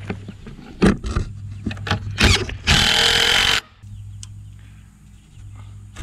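A few knocks and clicks of handling the wooden frame, then a cordless drill runs for just under a second, driving a screw into the lumber, and stops abruptly.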